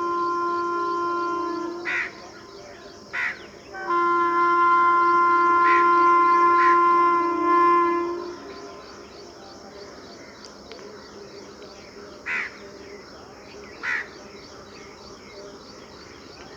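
WAP-7 electric locomotive's dual-tone horn sounding in loud, steady blasts: one ending about two seconds in, then a longer one from about four to eight seconds.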